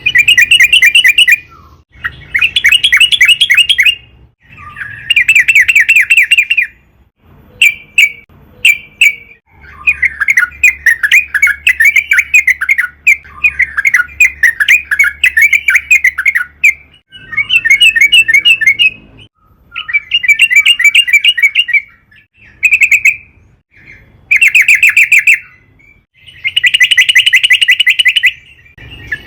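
Yellow-vented bulbul (trucukan) singing loudly in repeated bursts of fast, chattering notes, each a second or two long, with one long unbroken run of about seven seconds in the middle.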